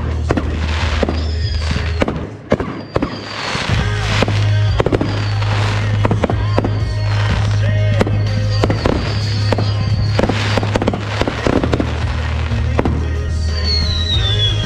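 Consumer fireworks going off in a hand-fired finale: a rapid, continuous string of bangs and crackles from aerial shells and cakes, with high whistles and one whistle falling in pitch near the end. Background music plays underneath.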